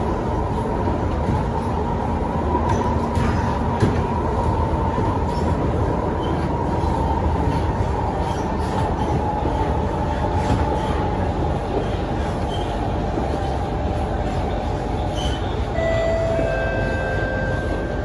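Kawasaki Heavy Industries C151 metro train heard from inside the car while running: a steady rumble of wheels on rail with a faint whine that slowly falls in pitch. A few brief higher tones sound near the end.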